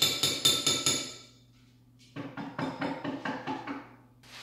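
A metal spoon knocking quickly against a small cup to get frosting out into a bowl of cake crumbs: two runs of rapid taps, about five a second, with a pause of about a second between them.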